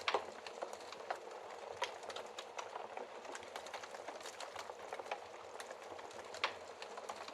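Wood fire in a fireplace crackling: a steady hiss of burning wood with constant irregular small crackles, and two louder pops, one just after the start and one about six and a half seconds in.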